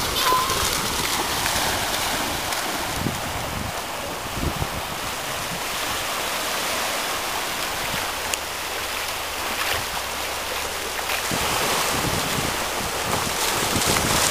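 Small waves breaking and washing up a sandy beach in a steady rush, with dogs splashing through the shallow water near the end.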